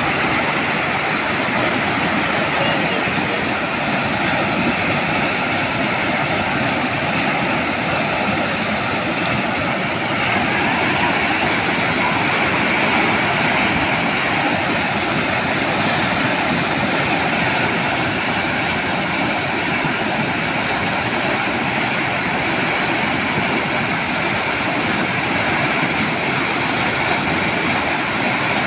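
Turbulent floodwater rushing through white-water rapids in a swollen river, a loud, steady rushing noise that holds without a break.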